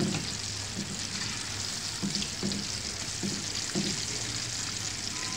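Battered boneless chicken pieces deep-frying in hot oil, a steady sizzle, with light clinks of a wire-mesh skimmer stirring them through the oil.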